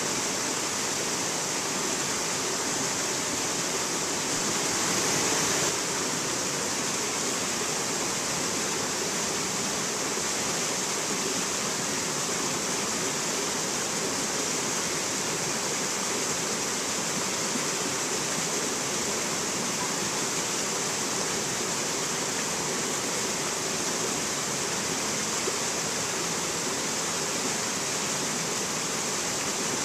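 A rocky mountain stream rushing and cascading over boulders and stones: a steady rush of water, briefly a little louder about five seconds in.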